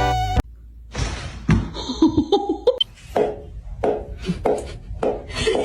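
Music cuts off, followed by a series of irregular knocks and thuds, about one every half second, with a few short pitched sounds around two seconds in.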